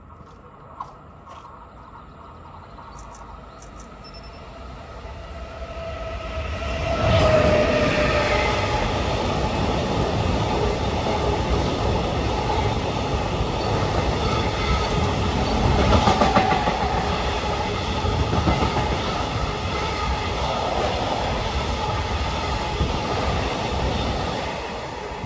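Freight train passing close by. It builds from a faint approach to its loudest about seven seconds in, where a tone drops slightly in pitch as the locomotive goes by. A long, steady rumble of the wagons rolling past follows and lasts to the end.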